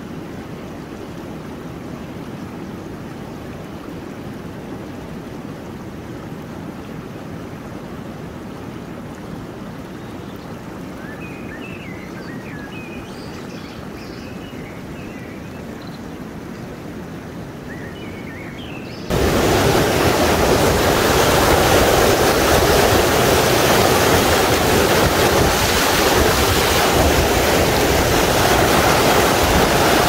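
Rushing water of a rocky river, steady and low-pitched at first with a few faint high chirps. About two thirds of the way in it cuts suddenly to a much louder, fuller rush of water close by.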